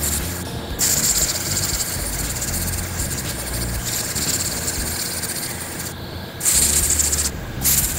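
Gravity-feed air spray gun hissing as it sprays clear wood finish. The hiss stops briefly about half a second in, then runs until about six seconds in, and comes back in short trigger-pulled bursts near the end. A low hum sits underneath.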